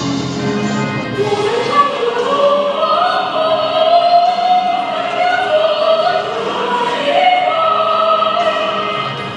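A choir singing, with long held notes that slide from one pitch to the next.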